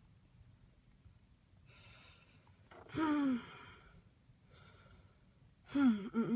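A person sighing in exasperation: a breath, then a falling sigh about three seconds in, another breath, and a wavering sigh near the end.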